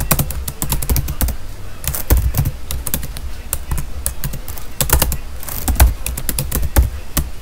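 Typing on a computer keyboard: irregular runs of keystrokes, over a low steady hum.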